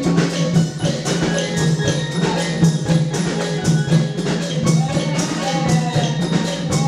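Thai klong yao long-drum dance music: a fast, steady beat of drum and small-percussion strikes over a low sustained tone.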